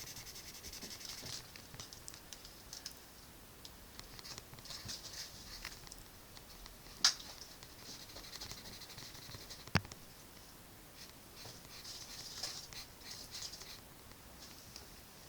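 Drawing strokes scratching on paper in short runs, with two sharp taps about seven and ten seconds in.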